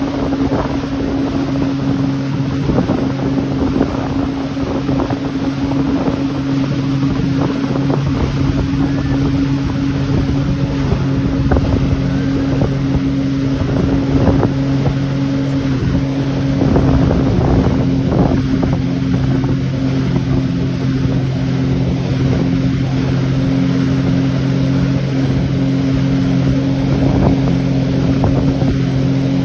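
Motorboat engine running at a steady pitch, with rushing wind and water noise over it.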